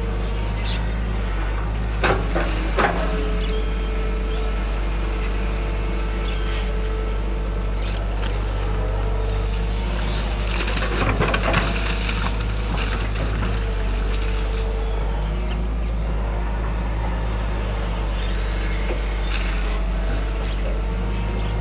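Excavator's diesel engine running steadily under hydraulic work, with a held whine for several seconds. There are two short clunks about two seconds in, and a louder, noisier spell around eleven seconds in.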